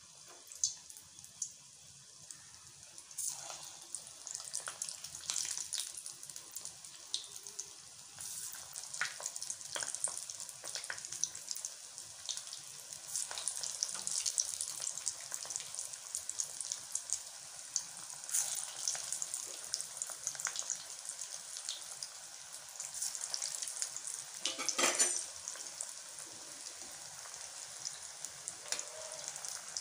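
Fish kola balls deep-frying in hot oil in a metal kadai: a steady crackling sizzle that builds up about three seconds in. A short, louder clatter comes near the end.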